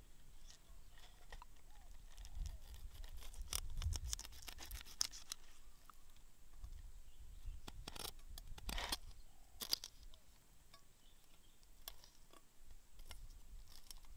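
A large kitchen knife cutting through a whole mackerel tuna on a wooden cutting board, the blade slicing along the back and through skin and flesh. Clusters of crackling clicks come about four seconds in, again around eight to nine seconds, and once near ten seconds.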